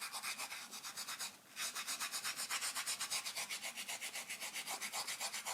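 Fingers rubbing finely ground coffee into knife-cut kolrosing grooves on a wild cherry wooden spoon handle: fast, even back-and-forth rubbing strokes, about eight a second, with a brief pause about a second and a half in.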